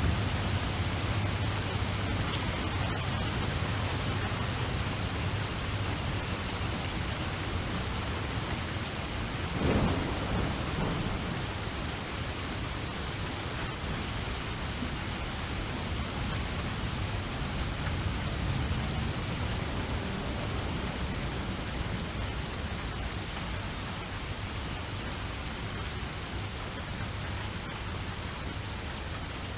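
Steady rain falling, with low rumbling thunder that dies away in the first second or two and a short, sharper clap of thunder about ten seconds in.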